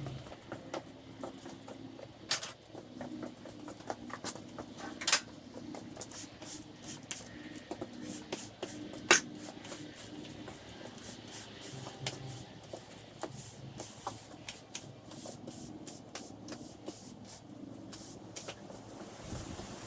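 Scattered clicks, knocks and clanks of steel pieces and tools being handled and put away in a shop, with three louder sharp clanks and a quicker run of clicks near the end, over a steady low hum.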